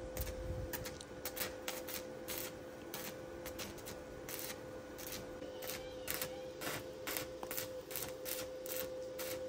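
Irregular light clicks and taps, several a second, over a faint steady hum.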